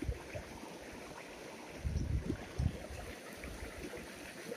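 Shallow stream flowing over rocks, a steady rush of water. A few low bumps sound about two seconds in.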